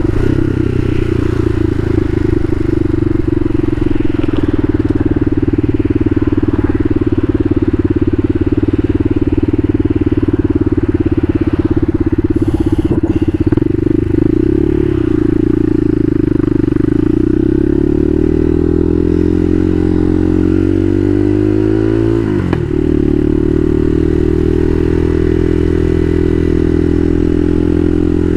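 Bashan Motomax 250 supermoto's engine running under way at steady high revs, then easing off with the revs falling gradually. About two-thirds through, the revs briefly dip and jump back up, and the engine then runs steady again.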